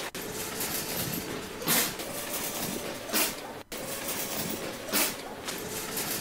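A grocery-store field recording of hazy store ambience, played back through a software sampler and retriggered from the keyboard at different pitches. A brief louder swish comes every second or so, and the sound cuts off sharply once, about two-thirds of the way in.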